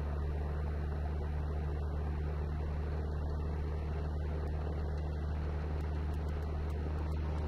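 Cessna 172N's four-cylinder Lycoming engine and two-blade propeller running steadily at high power as the aircraft rolls down the runway on its takeoff run, a constant deep drone.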